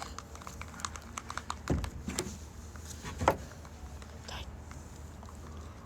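Slime being squished and kneaded by hand: a stream of small sticky clicks and pops, with two soft thumps about two and three seconds in.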